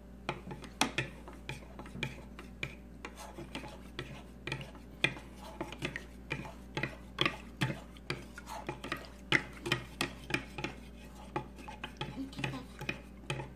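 A spoon stirring glue and food colouring in a plastic bowl to make slime. It gives a steady run of irregular scrapes and light taps against the bowl, about three a second.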